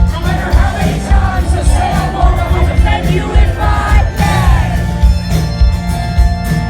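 Live rock band playing at full volume, with a pounding drum and bass beat under singing, and the crowd shouting and whooping along.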